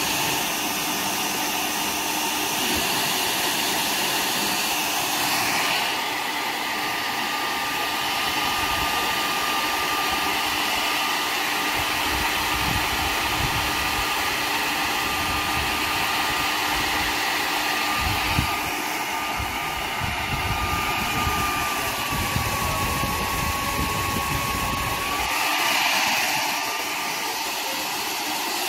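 Small handheld hair dryer blowing steadily with its nozzle inside a sneaker to dry it. Its sound changes about six seconds in and again near the end as it is moved between the shoes.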